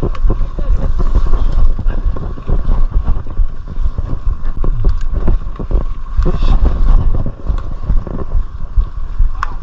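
Mountain bike ridden over a rough off-road trail: heavy wind buffeting on the microphone, with scattered rattles and knocks over the ground.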